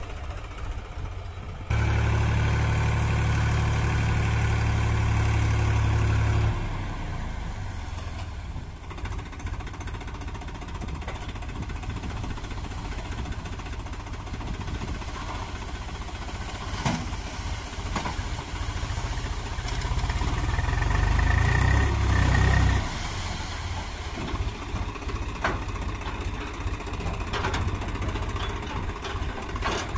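Diesel engines of a JCB 3DX backhoe loader and a Swaraj 735 FE tractor running, joined by abrupt cuts with sudden changes in level, loudest from about 2 to 6 seconds in. The tractor's engine runs steadily while its hydraulic tipping trolley lifts to dump soil, growing louder for a few seconds past the two-thirds mark with a brief high whine.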